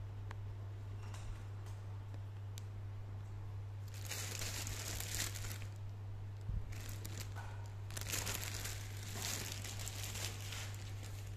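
A plastic bag crinkling and rustling in two spells, the first about four seconds in and the second near the end. A steady low hum runs underneath.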